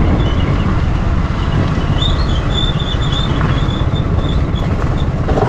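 Motorcycle being ridden, its engine and the ride making a steady, loud low rumble, with a thin high tone coming and going from about two seconds in.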